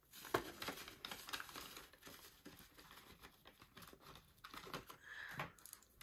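Paper banknotes and clear plastic binder sleeves being handled, a faint irregular crinkling and rustling with small clicks.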